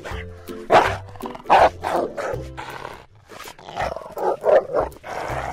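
Recorded dog barking played through an iPhone speaker, a rapid run of about ten barks in two clusters, coming from a toy cat meant to guard its food bowl. Background music with a steady bass line runs underneath.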